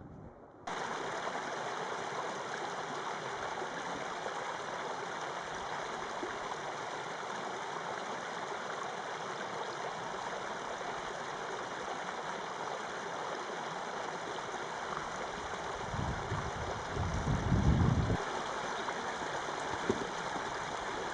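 Shallow desert creek (Cave Creek) running over rocks, a steady babble that starts suddenly just under a second in. About sixteen seconds in, a low rumble rises over it for a couple of seconds.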